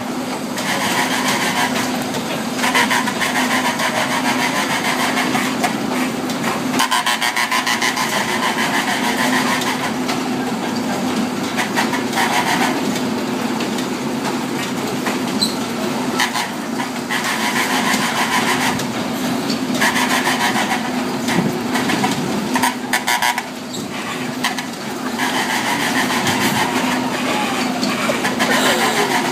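Kiddie motorcycle carousel ride running as it turns: a steady machine hum with rattling and clatter from the ride.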